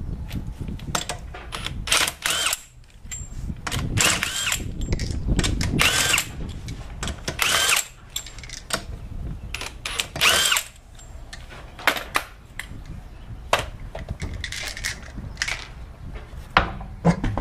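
Cordless impact wrench spinning lug nuts off a car wheel in several short bursts, each with a whine that rises and falls, with sharp clicks in between.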